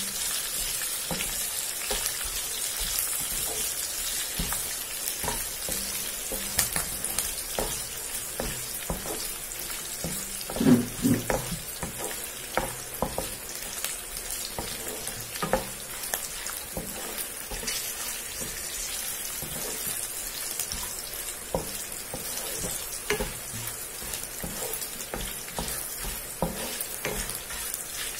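Tempering of dals, dried red chillies, green chillies and curry leaves sizzling in hot oil in a kadai, stirred with a wooden spatula: a steady frying hiss with scattered clicks and knocks, a louder run of knocks about ten seconds in.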